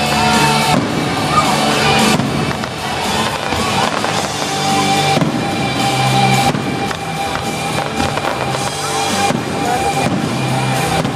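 Fireworks going off, separate bangs a second or a few seconds apart, over music.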